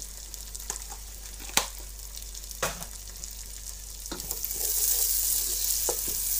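Sliced onions, garlic and green chillies sizzling steadily in hot oil in a kadai, with two sharp clicks about one and a half and two and a half seconds in. From about four seconds in, a wooden spoon stirs them and the sizzling grows louder.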